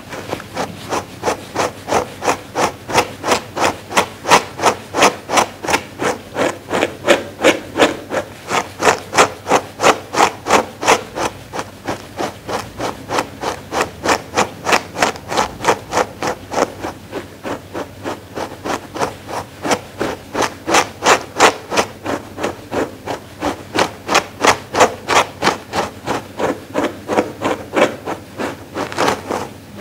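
Dog grooming brush stroked repeatedly through a fleecy pad: a steady run of short scratchy brushing strokes, about two to three a second.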